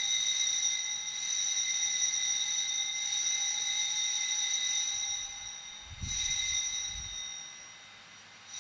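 Altar bell rung at the elevation of the host after the consecration: a bright, high ring that fades by about five seconds in, is rung again about six seconds in and once more at the end.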